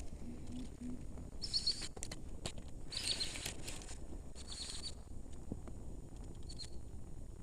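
A bird calling in short, quick chirping phrases about every second and a half, fading near the end. A low run of three or four short hooting notes comes at the start, with a few faint clicks.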